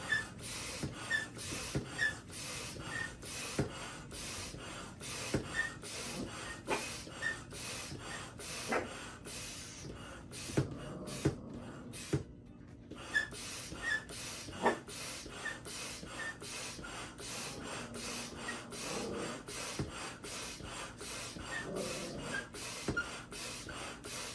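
Double-action hand pump inflating an inflatable paddle board: a rhythmic hiss of air with each stroke, about three strokes a second, with a faint chirp about once a second. The pumping stops briefly about twelve seconds in, then carries on.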